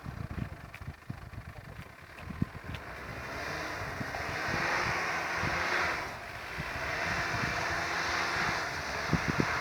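Force Gurkha's diesel engine running under load off-road, with scattered knocks early on, then a loud rushing noise that swells about three seconds in, dips briefly and returns.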